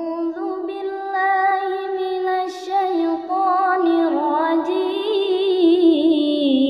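Music with a voice singing slow, long held notes that waver in pitch and step down gradually.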